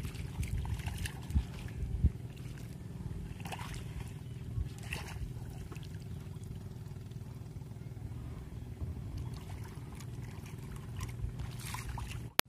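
Footsteps in flip-flops sloshing and splashing through ankle-deep seawater over a sandy tidal flat, irregular, with two sharper splashes about a second and a half and two seconds in. A steady low rumble runs underneath.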